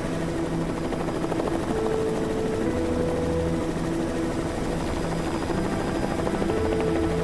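Helicopter running steadily while it sits on the ground, its engine and rotor noise continuous.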